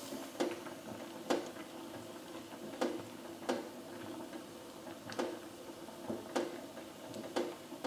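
Aluminium pot of water spinach soup boiling on a gas stove: a steady low hum with light, sharp ticks about once a second, as a ladle stirs in the pot.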